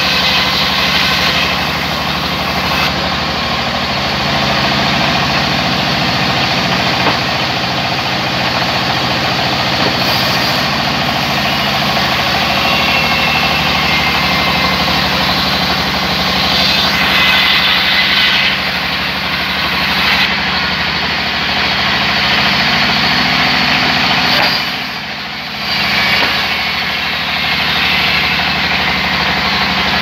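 Sawmill band saw running and ripping lengthwise through a thick wooden log as it is pushed along the table. A steady machine drone is heard under the rasping hiss of the blade in the wood, with a brief drop in loudness about five seconds before the end.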